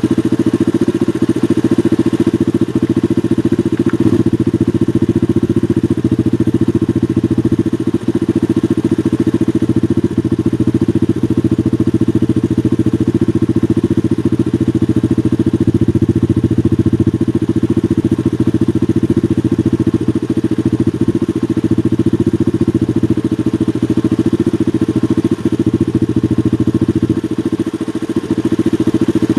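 New Holland 8060 combine harvester running steadily: a constant, deep engine drone that stays even throughout.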